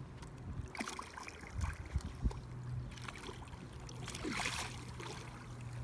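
A hooked blue catfish splashing and thrashing at the water's surface, with a few sharp knocks about two seconds in and a louder splash past the middle, over a low steady hum.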